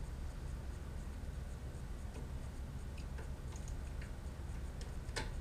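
Scattered light clicks and ticks of small hardware handled by hand: the Delrin nut being threaded onto the Acme lead screw of the X-Carve's Z-axis. A sharper click comes about five seconds in, over a steady low hum.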